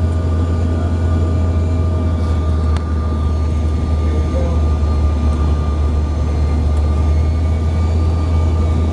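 Steady cabin drone of a CRJ-700 in flight: a strong low hum from its rear-mounted CF34 turbofan engines, with a faint steady whine above it.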